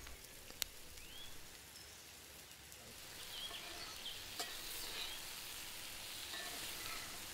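Butter sizzling in a cast-iron skillet with garlic, sage and thyme, then sliced porcini mushrooms frying in it as they are laid in and turned by hand. The sizzle is faint and grows a little louder about three seconds in.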